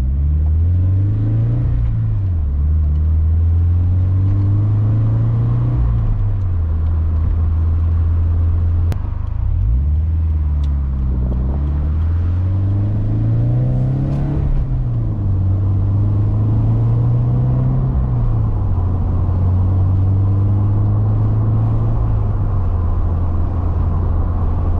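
Cabin sound of a Toyota 86-family sports coupe's flat-four engine under way with a manual gearbox. The engine note climbs, then drops sharply at gear changes several times, and holds steady between them.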